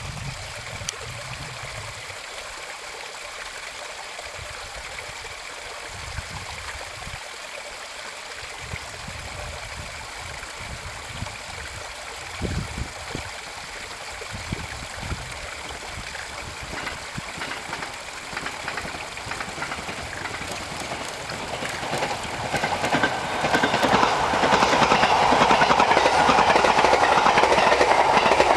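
JR East 651 series electric multiple unit approaching on the line: its running noise rises out of the background about twenty seconds in and is loud over the last few seconds as it nears.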